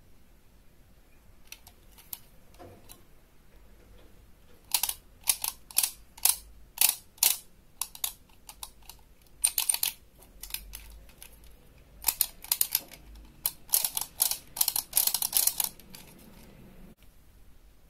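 Hard plastic parts of a Bandai DX Desire Driver toy belt and its Raise Buckle clicking and clattering as they are handled, in several bursts of quick, sharp clicks beginning about five seconds in.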